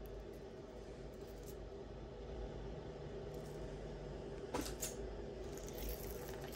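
Faint clicks and light metallic rustling of costume jewelry being handled, with one sharper click about four and a half seconds in, over a low steady room hum.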